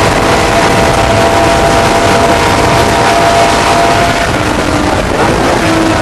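Porsche 911 ST's 2.5-litre air-cooled flat-six race engine running loud and steady at speed, its pitch easing down about four seconds in.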